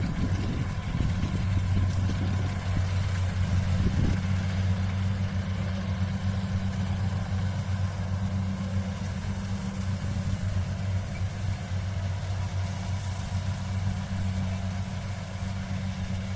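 Engine of the harvesting machinery running steadily at a constant speed: an even low hum that neither rises nor falls.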